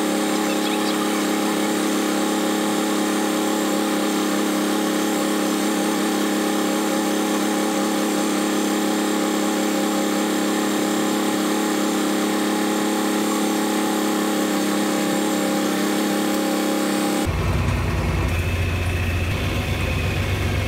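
Tractor engine running steadily under load while pulling a wheel hay rake. About 17 seconds in, the sound changes suddenly to a deeper, lower rumble.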